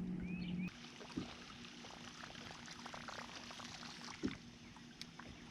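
A steady low hum cuts off abruptly less than a second in. After that, water laps and trickles against a boat, with a couple of light knocks.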